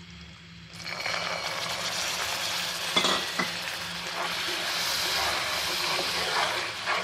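Sugar syrup boiling hard in a pan, a dense bubbling sizzle that comes in about a second in, while a wooden spatula stirs it. There are a couple of short knocks of the spatula against the pan about three seconds in.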